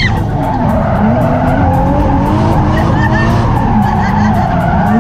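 A drift car's engine running hard, heard from inside the cabin, its pitch rising and falling with the throttle over a steady rush of tyres skidding sideways.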